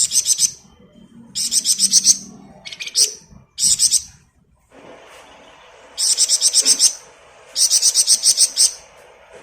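Flamboyan songbird singing in short, high-pitched bursts of rapid pulsed trills (ngebren), about six bursts, with a pause of about two seconds midway.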